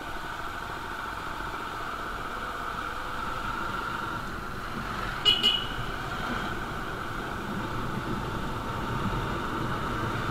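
Motorcycle riding along a street: steady engine and road noise, with a horn giving two short beeps about five seconds in.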